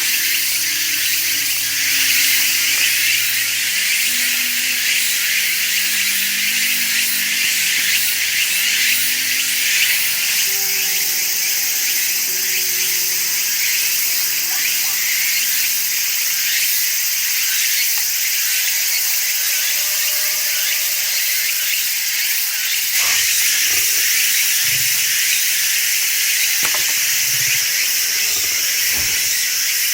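Loud, steady chorus of late-summer insects singing in the forest, filling the high range. A few soft knocks come near the end.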